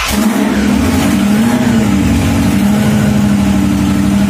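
Roots-supercharged engine of a 1969 Dodge Charger running just after firing up, its speed wavering over the first couple of seconds before settling into a steady idle. The carburettor idle mixture has just been turned richer after a lean idle.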